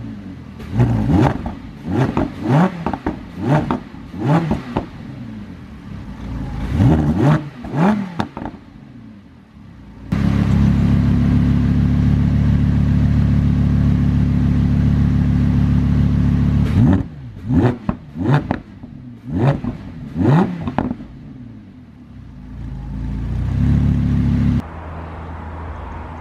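Lamborghini Huracán's 5.2-litre V10 revved through its quad exhaust pipes, in Strada and then Corsa mode. A string of quick throttle blips is followed by a high rev held for about six seconds, then more quick blips. A final climbing rev cuts off suddenly back to idle.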